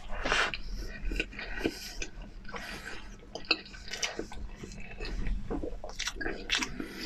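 Close-up chewing of soft mousse cake: wet, squishy mouth sounds with many short clicks at an uneven pace.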